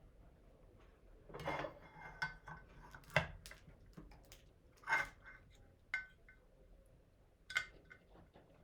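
About six small hard clinks and knocks, a few with a brief metallic ring, from the pieces of a 1:200 diecast model airliner being handled and set down.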